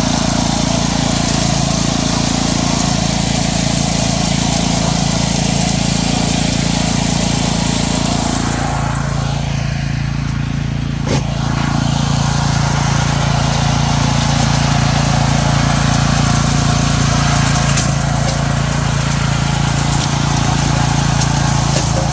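Petrol engine of a wood chipper-shredder running steadily. Its note drops slightly about nine seconds in, and the sound thins for a few seconds before filling back in.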